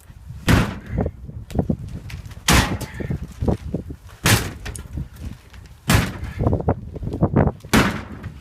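Sledgehammer blows landing heavily, five strikes about 1.7 seconds apart, with smaller knocks and clatter between them.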